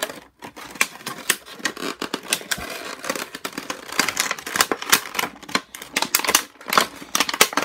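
Thin clear plastic packaging bag crinkling and crackling as it is handled and a soft cloth cloak is worked out of it, in quick irregular crackles.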